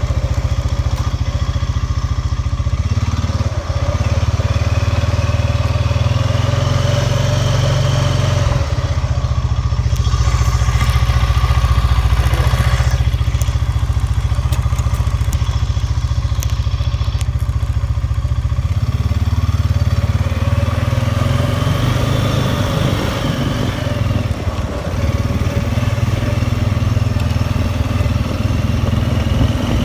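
A small vehicle's engine running steadily under a heavy low rumble while being ridden, its pitch rising and falling a little as the speed changes.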